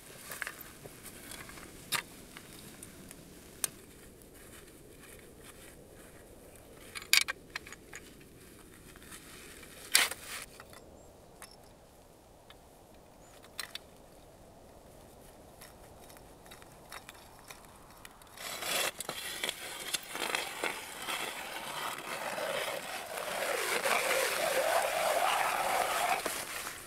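A few sharp metal clicks and knocks as a folding hand ice auger is set up. About two-thirds of the way in, its blades start grinding and crunching through river ice, growing louder until they stop near the end.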